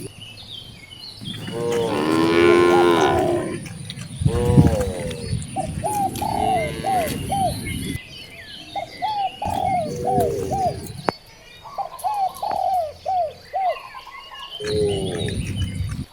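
Several cattle mooing, long low calls coming every few seconds from different animals. Between the moos come runs of short, higher-pitched hooked calls, several a second.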